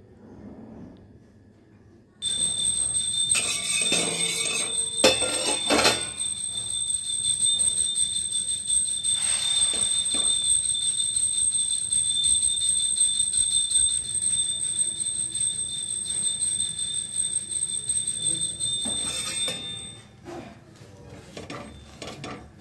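A loud, steady high-pitched whistle that starts suddenly about two seconds in and fades out near the end, with a few knocks about four to six seconds in.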